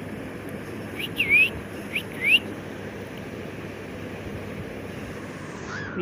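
Cockatiel giving a few short whistled calls, one dipping then rising and the others quick rising slides, clustered between about one and two and a half seconds in, over a steady background hiss.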